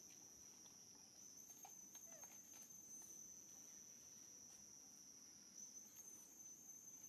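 Faint, steady, high-pitched drone of insects, with a few faint short chirps about two seconds in.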